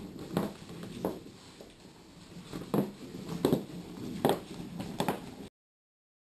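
Footsteps of 5-inch-heeled suede boots on a wooden kitchen floor: about six slow, uneven steps, each a separate knock.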